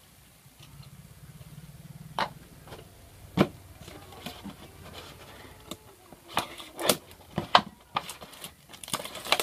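Thin plastic of an empty water bottle being handled and pressed: sharp clicks and crackles, two single clicks and then a quicker run of them in the last few seconds. A low hum stops about two seconds in.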